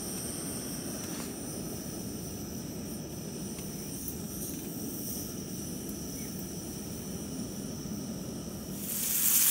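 Propane cooker burner running steadily under a cast iron skillet, with insects buzzing on two steady high notes. Near the end a loud sizzle rises as battered turtle meat fries in the hot fat.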